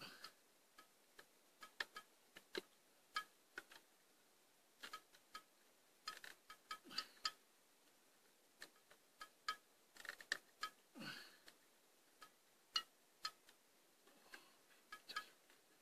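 Faint, irregular metallic clicks and light taps from hand work on a borehole pump's pipe fittings, with a dull knock about eleven seconds in.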